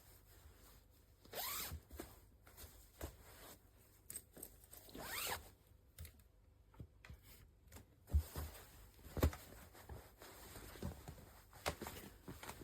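A zipper pulled twice, each pull a short rising zip, about 1.5 and 5 seconds in. Then a few soft thumps and clicks of handling.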